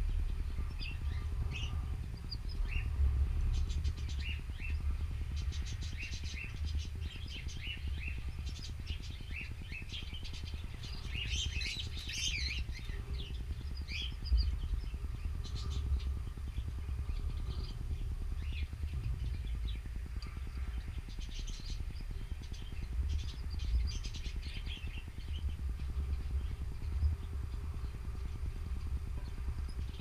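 Canaries giving short chirping calls scattered throughout, with a brief busier burst of twittering about twelve seconds in, over a steady low rumble.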